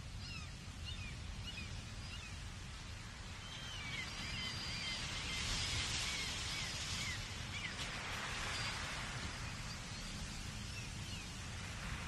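Ocean surf washing against the foot of the sea cliffs, with a steady low rumble and a hiss that swells around the middle. Seabirds call over it in short chirps, several times throughout.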